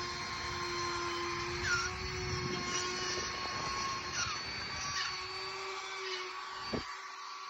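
Ryobi power tool motor running with a steady, high whine. Its pitch drops out for a couple of seconds midway and then returns.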